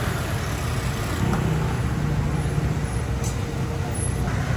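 Motor scooters running along a busy street: a steady low engine and traffic rumble, with one engine humming close by for a second or so about a second in.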